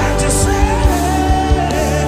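Live gospel worship band playing with drums keeping a steady beat, while a singer holds and bends a melody line over it.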